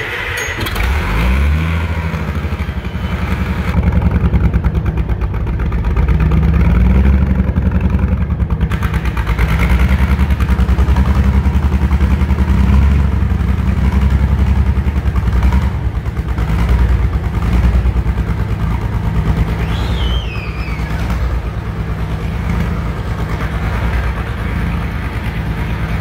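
White farm tractor's engine just after a hard cold start on ether, running loud and uneven, its speed rising and falling as it settles.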